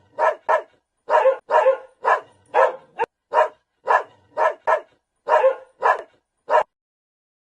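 A dog barking repeatedly in short, sharp barks, about two a second, stopping near the end.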